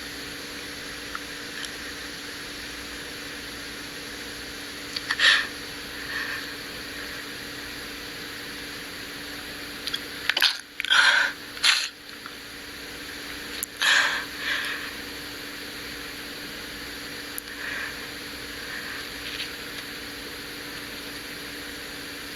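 A person sneezing in a fit: one sneeze about five seconds in, two or three in quick succession around eleven seconds, and another about fourteen seconds in, with quieter short sounds between. A steady low hum runs underneath.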